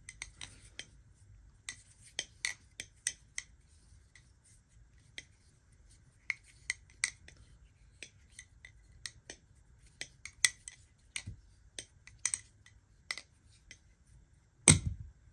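Marcolo Comet balisong being flipped: its handles clack and the pivot and latch click in an irregular run of sharp clicks, with one louder knock near the end.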